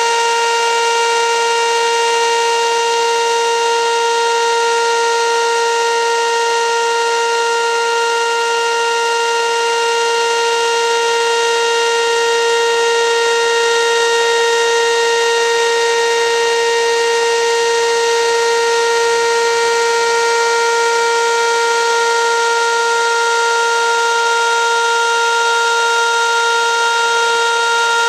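Whelen WPS 2810 electronic outdoor warning siren sounding a loud, steady tone for a scheduled test, holding one pitch without rising or falling.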